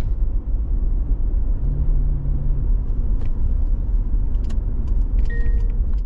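Steady low rumble of a car driving, heard from inside the cabin, with a few light clicks in the second half.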